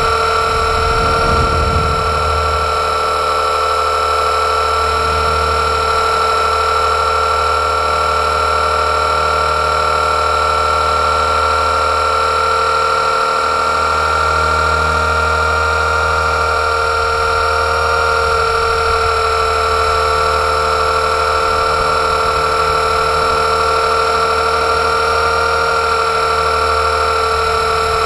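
Blade 230S V2 RC helicopter's electric motor and spinning rotors heard from its own onboard camera: a steady high whine over a low rumble, holding nearly the same pitch throughout.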